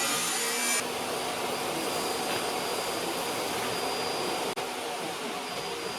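Steady, even rushing noise of a running machine in a metalworking workshop. The tail of background music fades out about a second in, and there is a brief break just past the middle.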